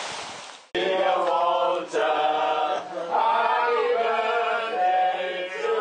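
A group of men singing together, holding long notes, in a crowded room. For the first moment, running water and wind noise fade out before a sudden cut to the singing.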